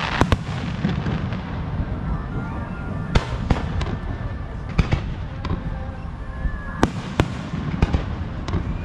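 Aerial fireworks shells bursting: a string of sharp bangs, one every second or so, over a continuous low rumble and crackle from the ongoing display, picked up by a GoPro Hero12's built-in microphone.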